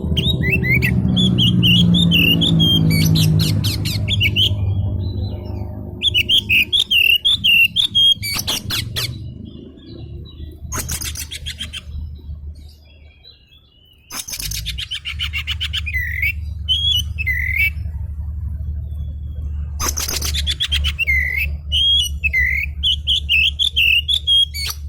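Oriental magpie-robin (kacer) singing in agitated bursts: repeated warbling, whistled phrases broken by harsh, rapid rattling calls.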